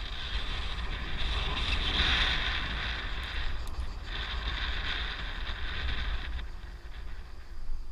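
Wind buffeting the microphone during a fast ride down a road, with a rushing hiss over it that drops out briefly about three and a half seconds in and fades after about six seconds.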